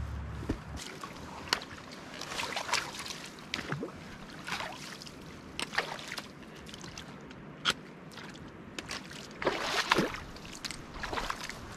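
Footsteps splashing through shallow water and onto rocks, with sharp, irregular taps of trekking-pole tips on stone. The splashing is heaviest about two and a half seconds in and again near the end.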